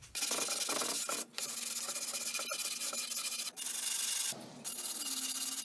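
Sanding the wood of a stool chair: a steady abrasive rasp in several stretches broken by short gaps.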